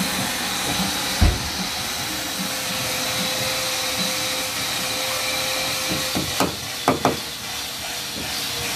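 Steady hissing background noise, with a dull thump about a second in and a few sharp knocks around six to seven seconds in from a screwdriver and hands working at a tailgate damper's mounting.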